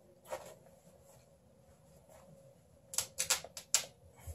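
Scissors snipping through the fabric of a worn pant leg: one snip, then a quick run of about five sharp snips about three seconds in.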